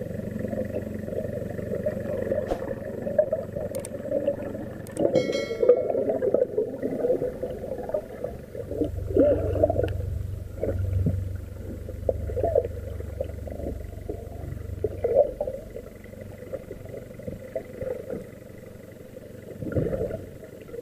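Muffled, rumbling underwater noise from a camera submerged in the sea: water surging and knocking against the housing in irregular swells, with a low hum from about a third of the way in to past the middle.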